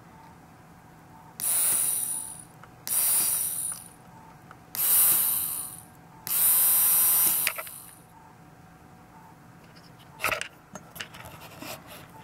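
Small DC hobby motor spinning its bare motor crown in four short runs of about a second each, a high buzzing whine that starts and stops as its pushbutton is pressed and released. A few sharp clicks and knocks of handling follow near the end.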